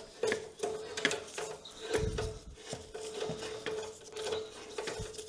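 Metal hand tools clinking and scraping against a motorcycle's frame and fittings, a string of short irregular knocks and rattles as a wrench works on the bolts.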